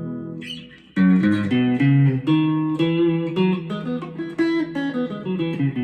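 Strat-style electric guitar with Fender Noiseless pickups on the second position of its five-way selector, played clean through a Boss Katana 150 amp, with a little of the in-between-position quack. A ringing chord dies away, a short scratch of muted strings comes about half a second in, then picked single notes and arpeggios ring from about a second in.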